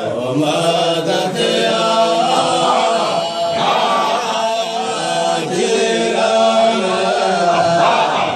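Group of men chanting together in a Sufi dhikr, their voices running on with hardly a pause.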